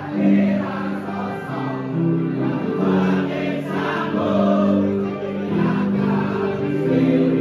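Music with a group of voices singing held notes together.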